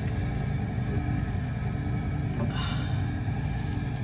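A steady low mechanical rumble and hum, with a short brushing rustle a little past halfway and another near the end, from a small brush being pushed through an RV fridge's clogged defrost drain.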